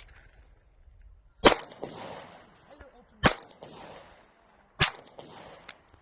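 Three gunshots, about a second and a half apart, each followed by a short fading echo.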